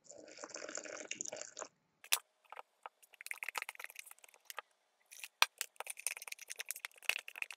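Hot water poured from a plastic measuring jug into a plastic deli cup of dry fruit-fly culture powder, running for about a second and a half. After that comes a spoon stirring and scraping the damp, pasty media against the cup, as a string of irregular crunchy scrapes and taps.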